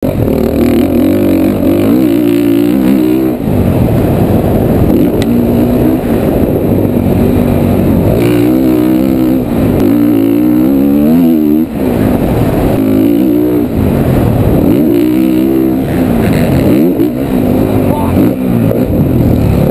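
Honda CRF450 dirt bike's single-cylinder four-stroke engine revving hard, its pitch climbing and then falling away again and again as the throttle is rolled on and off through the gears.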